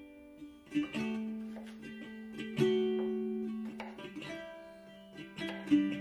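Background music on a plucked acoustic guitar: single notes and chords struck one after another, each ringing out and slowly fading.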